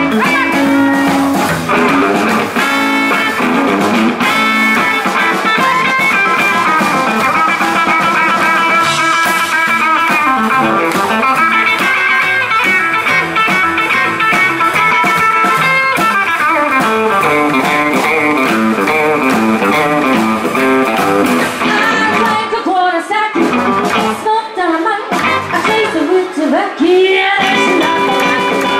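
Live rockabilly band playing, an electric guitar to the fore over upright double bass and drums.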